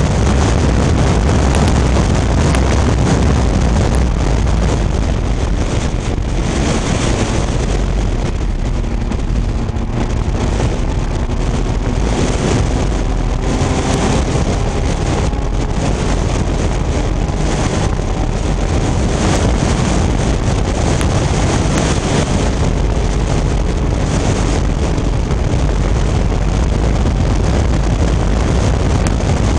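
Vintage Fiat race car at racing speed, heard from inside the open cockpit: the engine running hard under heavy wind buffeting on the microphone, with a faint engine note gliding up and down in the middle.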